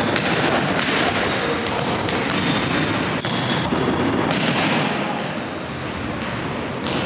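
Indoor futsal play in an echoing sports hall: the ball being kicked and bouncing on the wooden floor, players calling out, and a few short high squeaks around the middle.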